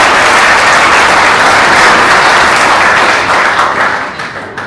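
Audience applauding loudly, the clapping dying away over the last second and a half.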